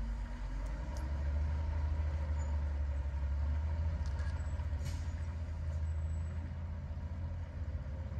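Low diesel rumble of a semi truck pulling hard under load, swelling about a second in and easing near the end, heard from inside a truck cab. The rig is trying to climb a muddy, rutted grade in spring thaw and is losing traction.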